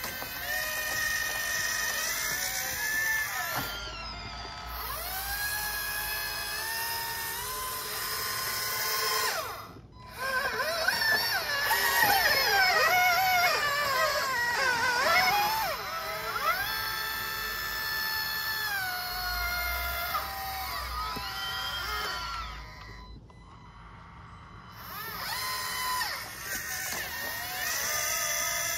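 RC model excavator's motors whining as it works, the pitch gliding up and down as the boom, bucket and turret move. There is a short lull about ten seconds in and a longer one a few seconds before the end.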